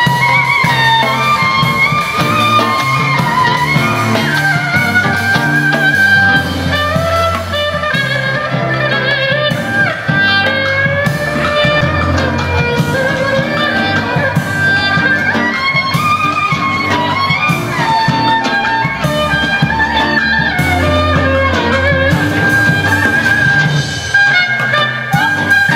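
Live street band playing: a bowed Vietnamese two-string fiddle (đàn nhị) carries a sliding, gliding melody over acoustic and electric guitars, a low bass line and a drum kit.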